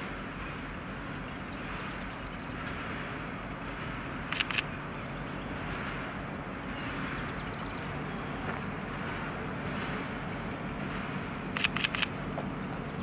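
Freight train rolling past with a steady rumble, with a brief cluster of sharp clicks about four seconds in and another near the end.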